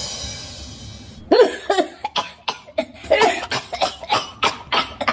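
A man's exaggerated, comic coughing fit: a long string of short, hacking coughs, about three a second, coming faster as it goes. It starts about a second and a half in, after a fading high ring.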